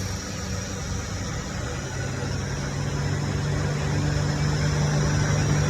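Car engine idling with the air-conditioning compressor running: a steady mechanical hum, with a strong low drone that comes in about two seconds in and slowly grows louder. The compressor is making an abnormal noise, taken to be a faulty AC compressor.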